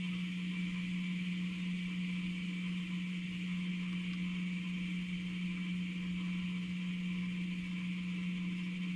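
Steady low electrical hum with a faint hiss over it, unchanging throughout.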